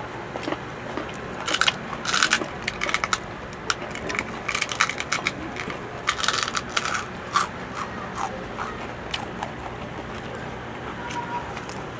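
Crispy pork chicharon and raw vegetables being bitten and chewed close to the microphone: loud, dense crunches for the first several seconds, then softer, scattered chewing.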